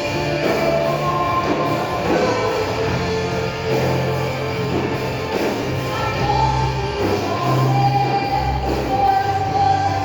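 Live band playing a gospel hymn with singing, over a steady bass line.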